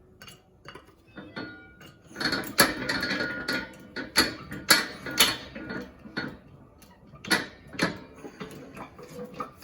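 Metal clicks and clanks from a hydraulic shop press pushing out a wheel bearing: a clatter of steel parts, then the press's jack pumped in short strokes about half a second apart.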